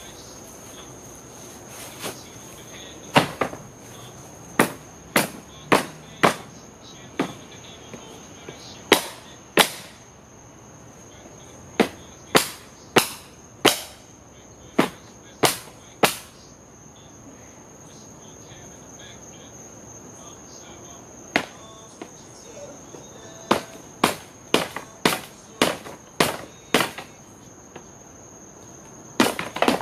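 Wooden shipping pallets being stomped, knocked and broken apart: a series of sharp wooden cracks and knocks in irregular clusters, with a lull in the middle. Crickets chirp steadily behind.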